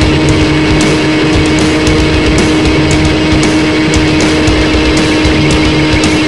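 Electric motor and propeller of an Easy Star model plane running at steady high throttle: a constant droning whine over heavy wind rush, with scattered sharp crackles.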